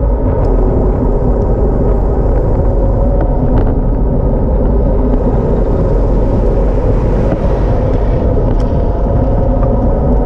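Steady wind and road rumble picked up by a camera mounted on a road bike during a fast downhill descent.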